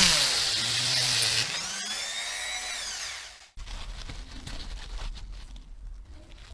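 Small handheld power tool, drill-like, winding down in pitch, running on at a lower speed, then speeding up with a rising whine before it cuts off about three and a half seconds in. Faint irregular handling noises follow.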